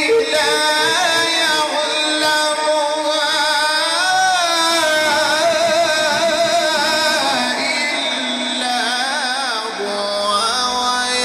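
A man's voice reciting the Quran in the melodic mujawwad style, drawing out long, ornamented, wavering notes with no pause.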